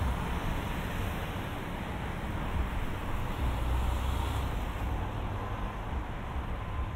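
Town street noise: a steady low rumble of traffic, swelling briefly about three and a half seconds in.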